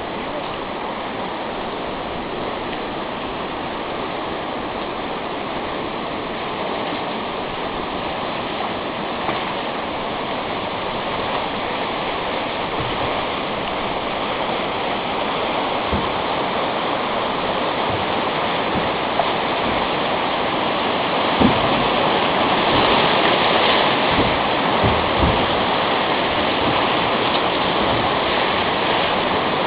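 River rapids rushing around a drift boat, a steady whitewater rush that grows louder in the second half as the boat runs the rapid. A few dull low thumps come in the louder stretch.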